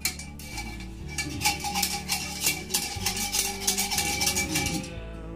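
A metal rod scraping and knocking inside a green metal part of a commercial masala (chilli) grinder, working loose caked chilli powder. Rapid rattling strokes, about five a second, start about a second in and stop shortly before the end.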